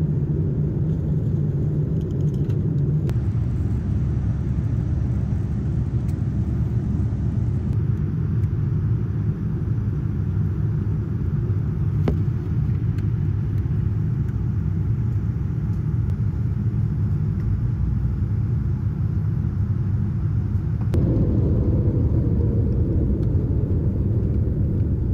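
Jet airliner cabin noise from a window seat: a steady low rumble of engines and airflow. About 21 seconds in it gets a little louder as the plane rolls out on the runway after touchdown, spoilers raised.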